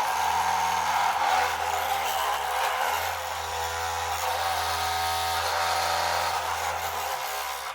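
Electric drive motors and gearboxes of an RC construction model whining steadily, the pitch shifting as the speed changes about halfway through.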